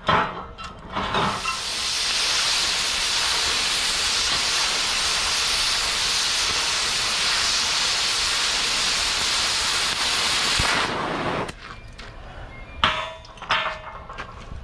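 Oxy-fuel cutting torch hissing steadily for about ten seconds as its cutting jet bevels the edge of a thick steel plate, then shut off suddenly. A few metallic clinks just before it starts and again shortly after it stops.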